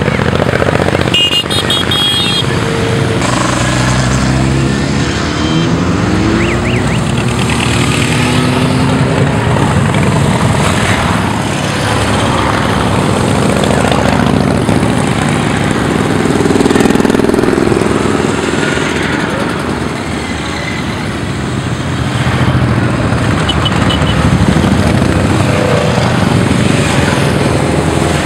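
A long procession of motorcycles riding past one after another, their engines running in an unbroken stream, the pitch rising and falling as each bike goes by.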